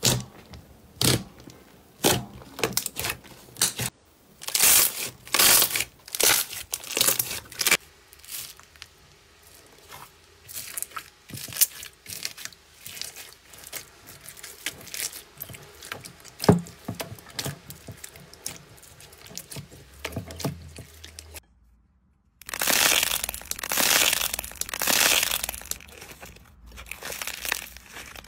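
Slime being poked, pressed and squeezed by hand: a run of sharp wet clicks, pops and crackles, loudest in clusters near the start and in the last quarter, with a brief silent break just before that last loud stretch.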